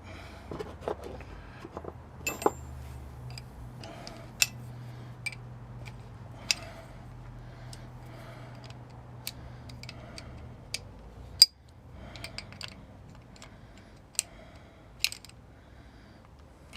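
Small metal parts clinking and a spanner clicking as washers and nuts are fitted by hand onto a metal band saw's blade guide, with one sharper knock about eleven seconds in. A faint low hum runs underneath and stops at that knock.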